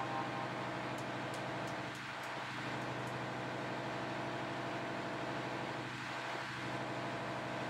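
Steady drone of engine-room machinery, a constant hum with several fixed tones under a wash of noise. A few faint ticks come between about one and three seconds in.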